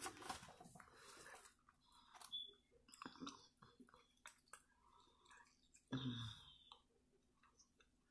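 Quiet close-up chewing of a spoonful of potato salad: soft wet mouth clicks and smacks scattered through, with a short low vocal sound about six seconds in.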